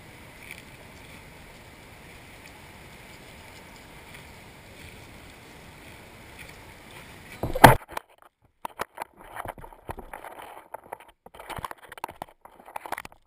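Steady wind and water noise at the shoreline, then one sharp, very loud knock about two-thirds of the way through, followed by scattered irregular crunching on the pebble beach.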